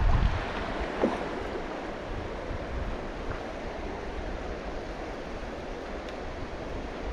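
Shallow stony river running, a steady rush of water over the riffles. A gust of wind buffets the microphone briefly at the start.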